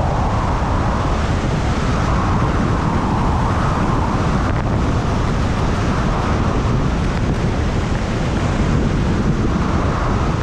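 Steady rushing wind buffeting an action camera's microphone on a fast ski descent, with skis hissing and scraping over packed, tracked snow.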